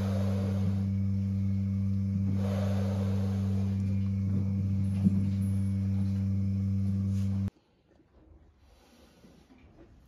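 Steady low machine hum, one low tone with overtones at an even level, which cuts off abruptly about three quarters of the way through, leaving only faint quiet sounds.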